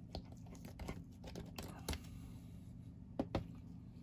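Small plastic model-kit parts being handled on a workbench: a scatter of light clicks and taps, with a louder double tap about three seconds in, over a low steady hum.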